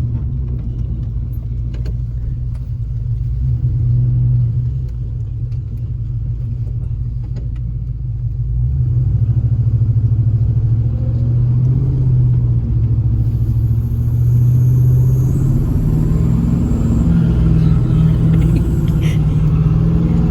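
The truck's swapped-in GM LS V8 runs low and steady, then revs harder and louder from about eight seconds in and holds there for a burnout. Only one rear wheel spins because the rear axle has an open (non-posi) differential.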